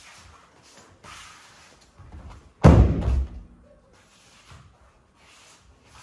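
A judoka in a blue judogi thrown onto judo mats, landing in a breakfall: one loud thud about two and a half seconds in, dying away with a short echo.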